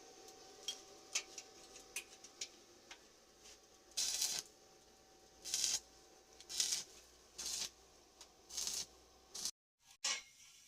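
Light clicks, then five short scratchy scraping strokes about a second apart, which stop suddenly near the end.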